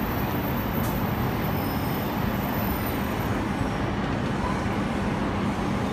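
Steady rumbling noise of an E7 series Shinkansen train standing at a station platform, with a faint low hum that grows clearer about halfway through.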